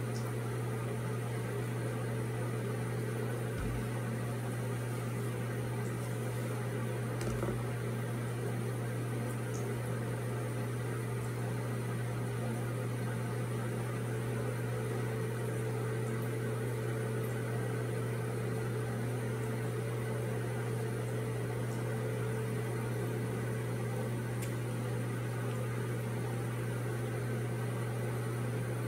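Steady low electrical hum with an even hiss over it, from an appliance left running as background noise; a couple of faint soft thumps about four and seven seconds in.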